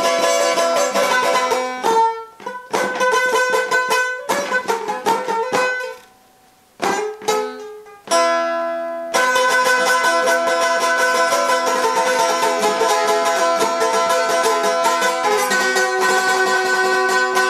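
Long-necked saz-type lute played with fast strumming and picking, a quick tune over steady droning notes. About six seconds in it breaks off, a few strokes follow, and the fast playing picks up again.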